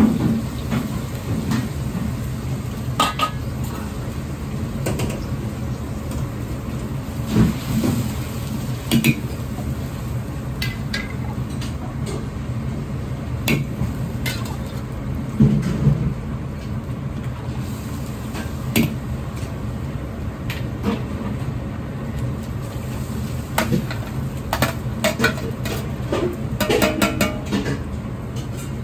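Steady low roar of a gas wok burner under the sound of a steel ladle clinking and scraping against a wok as stock and sauce are stirred and simmered. The knocks come at scattered moments, with a quick run of clicks near the end.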